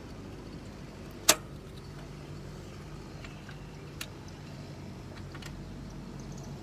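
Tools and engine parts being handled during timing chain work: one sharp click about a second in and two fainter clicks later, over a steady low hum.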